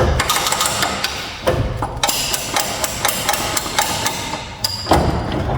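Repeated sledgehammer blows, metal on metal, driving a Dodge Dakota's suspension control-arm bolt out of its bushing. The bolt is starting to rust and will not come out without hammering.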